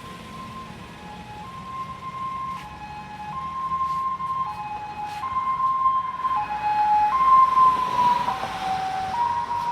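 Ambulance siren sounding a two-tone hi-lo pattern, alternating between a higher and a lower note about once a second. It grows louder as the vehicle approaches, with road noise swelling and the notes dipping slightly lower as it passes about three-quarters of the way in.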